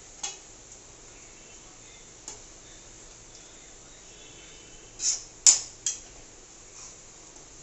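Metal spoon knocking against a pan, once near the start, once about two seconds in, and three louder knocks around five to six seconds, over the steady sizzle of onions frying in hot oil.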